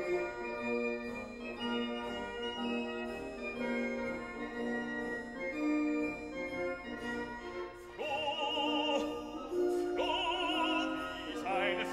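Background classical-style music: sustained keyboard notes carry a slow melody, then about 8 s in an operatic voice enters, singing with wide vibrato.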